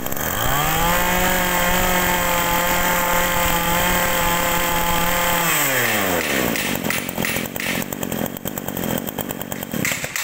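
Kawasaki TZ27 27 cc two-stroke brush cutter engine revved up about half a second in and held at a steady high speed for about five seconds. It is then throttled back, the pitch falling over about a second into an uneven idle.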